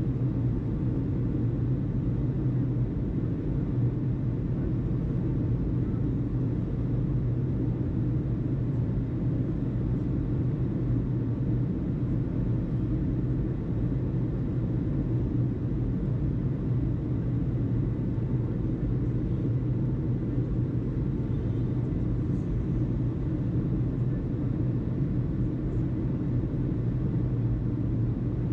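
Steady low rumble with a constant hum underneath, unchanging throughout and with no distinct events.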